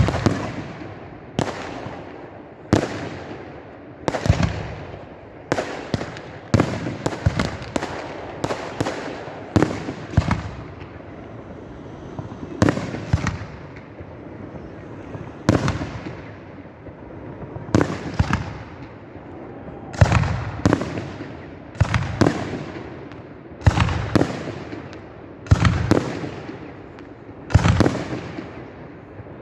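Fireworks display: aerial shells bursting one after another, sharp bangs each followed by a rumbling echo, about one or two a second with quick clusters of crackling reports in places.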